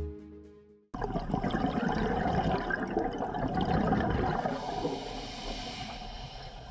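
Underwater recording: a dense rushing and bubbling of water with fine crackle, starting suddenly about a second in and easing off a little toward the end. Before it, background music fades out.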